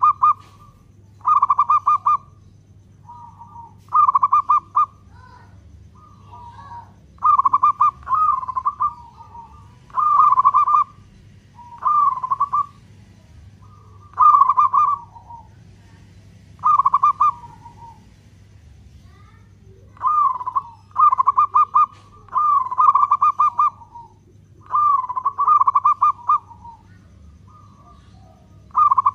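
Zebra dove (local perkutut) singing: short phrases of rapid rolling coo notes repeated about every two seconds, with a few longer phrases close together in the last third. A faint steady low hum runs underneath.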